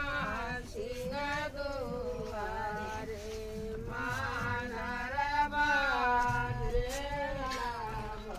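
Singing: a voice holding long notes that bend up and down, with almost no breaks.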